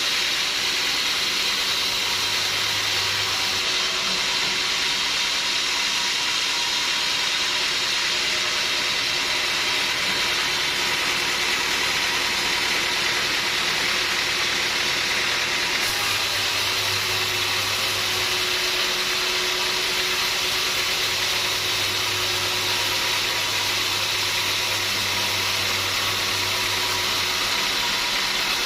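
Sawmill machinery running steadily, a continuous mechanical noise without breaks.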